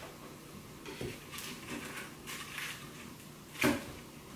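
Handling noise at a table: faint, brief crackling rustles of dry, flattened leaves and a picture frame being moved, then one sharp knock a little over three and a half seconds in.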